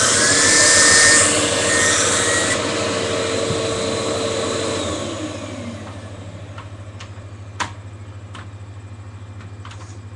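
Hoover WindTunnel T-Series upright vacuum cleaner running loud, with an airy rush that stops about two and a half seconds in. About five seconds in the motor's whine falls away as it winds down, and a few sharp clicks follow.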